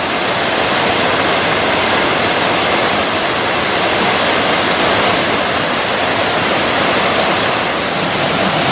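Waterfall cascades rushing steadily: a loud, even roar of falling water.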